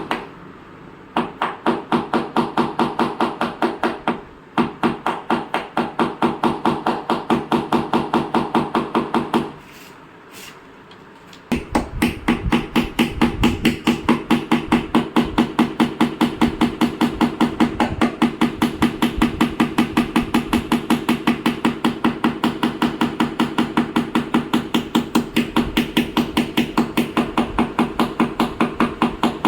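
Rapid, even tapping of a paintless dent repair hammer and tap-down tool on a car's sheet-metal panel, about four taps a second, stopping briefly near the start and again about a third of the way in.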